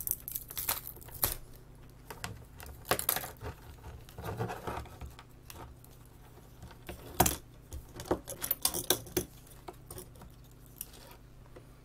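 Irregular clicks, taps and rattles of plastic and small metal parts being handled as the CRT viewfinder housing of a Sony DXC-M3A camera is pulled apart, with a short scrape about four seconds in and a sharper click about seven seconds in.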